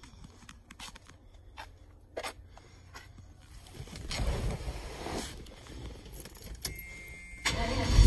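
Keys jangling and small clicks and knocks from the door as someone climbs into a pickup cab, with rustling about halfway through. A brief buzzing tone sounds near the end, then the truck's 383 cubic-inch V8 turns over and starts, its low rumble rising sharply.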